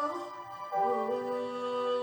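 Slow instrumental worship music of long held chords, moving to a new chord under a second in.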